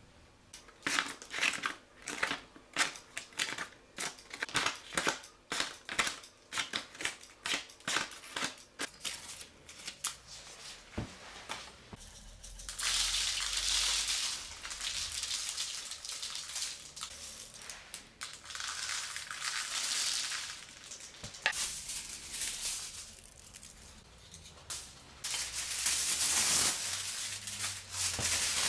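A rapid, irregular run of small clicks and taps, then from about halfway a louder crinkling and rustling of crumpled paper and aluminium foil, coming in three spells.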